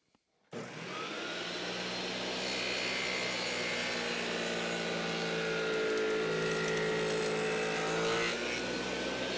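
Table saw running with a carbide dado stack, cutting a rabbet along a 2x4 test piece: a steady motor-and-blade hum with several fixed tones, coming in about half a second in.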